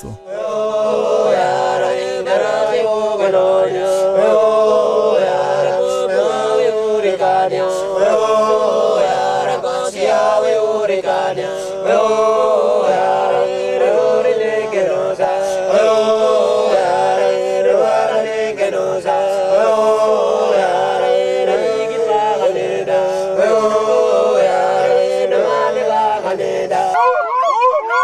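A group of Papuan highland men chanting a welcoming song in unison, with no instruments, the same short melodic phrase coming round again and again. Near the end the chanting stops and a higher, wavering sound takes over.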